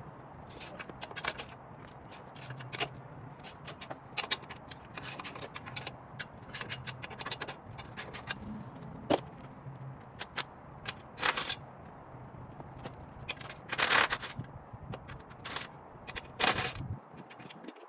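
Hand tools working the bolts on a truck's front bumper: irregular runs of quick metal clicks and clanks, with a few short, louder bursts in the second half.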